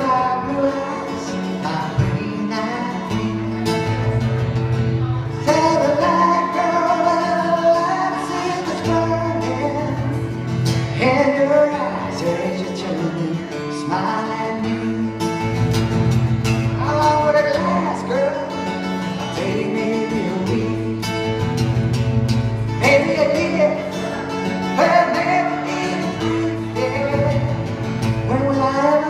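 A man singing a song while accompanying himself on an acoustic guitar, performed live into a microphone.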